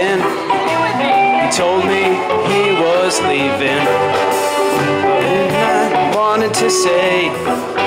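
Live rock band playing a song with electric guitars, bass guitar and drums, loud and continuous.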